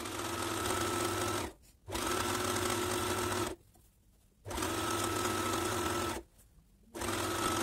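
Overlock machine (serger) stitching along the raw edge of fabric in four short, steady runs of about a second and a half each. Each run starts and stops abruptly, with brief silences between them, as the edges are finished.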